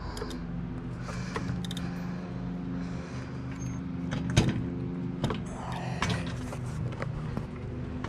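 Light metallic clicks and clinks of a bicycle chain and rear derailleur being handled as the chain is set on the smallest freewheel cog, with one sharper click about four and a half seconds in, over a steady low hum.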